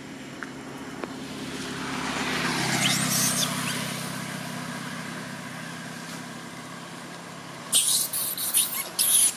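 A road vehicle passing by, its sound swelling to a peak about three seconds in and then fading. Near the end come several short, loud, harsh high-pitched bursts.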